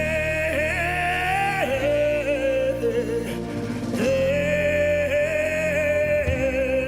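Gospel worship music: a single voice holds long, gliding sung notes without clear words over sustained accompaniment chords.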